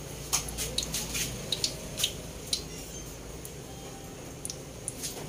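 Very hot cooking oil in a wok giving off scattered pops and crackles, irregular and several a second, growing sparser after about halfway.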